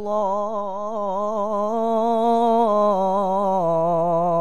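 A teenage boy's voice in melodic Quranic recitation (tilawah), drawing out one long melismatic note on the words "illā …" with quick wavering ornaments. The pitch steps up around the middle of the note and settles back down near the end.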